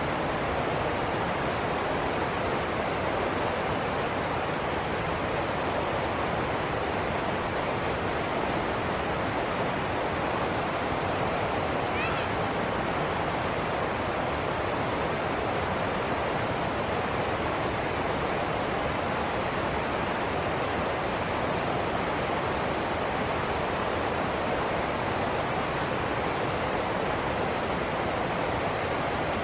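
Shallow rocky stream rushing over a small cascade into white water: a steady, even rush of water.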